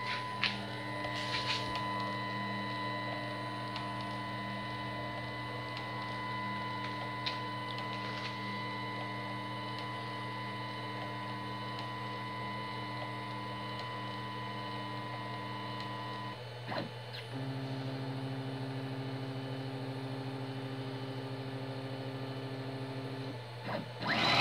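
Stepper-motor whine from a CNC router's axis drives as the spindle creeps down on an automatic tool-length probe. It is a steady whine for about sixteen seconds, then a brief sound as the bit meets the touch plate, then a steady whine at a different pitch as the axis moves again.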